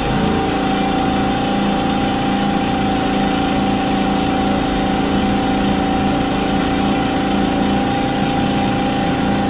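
Old electric air compressor starting up and running steadily with a constant hum, its motor powered by about 103 volts of 60 Hz from a car-audio amplifier used as an inverter.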